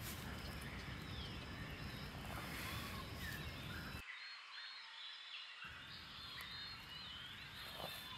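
Birds chirping faintly over steady low background noise; the low noise cuts out for about a second and a half, about four seconds in.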